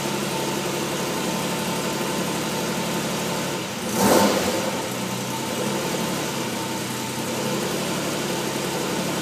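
1956 Aston Martin DB2/4's twin-cam straight-six running steadily at idle, with one brief louder burst about four seconds in.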